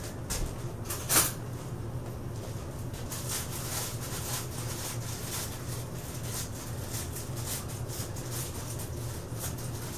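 Plastic cake-mix bag being handled and worked open off to the side: scattered faint crinkles and clicks, with one sharper click about a second in, over a steady low hum.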